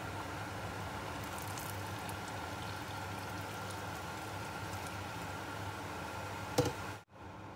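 Rice noodles boiling hard and foaming in a large stainless steel pot, with a stream of water poured in partway through to knock the foam down. A single sharp knock near the end.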